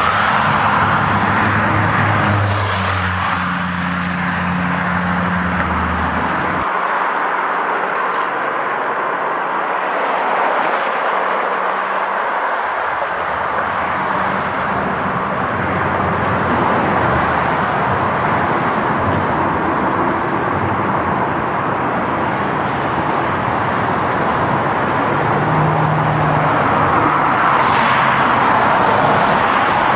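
Freeway traffic: a continuous rush of tyres and engines from passing cars, with engine hum from nearby vehicles in the first few seconds and swelling again near the end as more cars go by.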